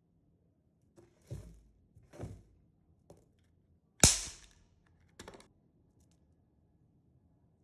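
Pop pop crackers (snap-pop novelty fireworks) going off: about six sharp pops spread over several seconds, the loudest about four seconds in, with a quick double pop just after it.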